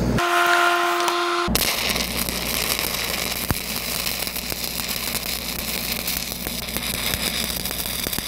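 Stick-welding arc crackling and sputtering steadily as a 3/16-inch 7010 pipeliner rod runs a downhill cap pass. The arc strikes about a second and a half in, on a restart, after a short steady humming tone.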